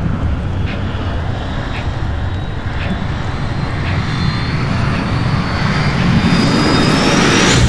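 Produced disaster sound effect of the incoming object: a deep, loud rumbling roar with faint ticks about once a second, then a whistling tone that climbs in pitch from about four seconds in as the roar swells to a peak at the end, like an aircraft diving closer just before impact.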